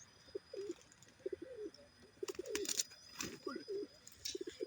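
Young dove cooing: a run of short, low coos, several in quick pulsing groups and some ending in a falling glide.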